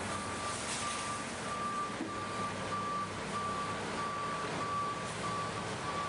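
Automatic truck wash arch spraying water from its rows of nozzles, a steady hiss with a low pump hum. Over it, a high electronic warning beep repeats with short breaks about twice a second, starting as the spray comes on.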